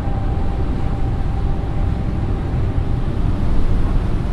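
Loud, steady low roar of strong wind buffeting the microphone, with a faint held tone dying away in the first couple of seconds.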